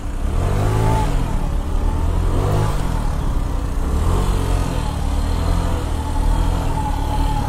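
Motor scooter engine revving up and easing off three times as it rides slowly between cars, over a steady low running note.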